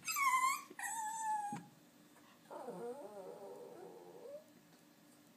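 Shorkie dog whining: two short, high-pitched whines in the first second and a half, then a longer, lower, wavering whine from about two and a half seconds in.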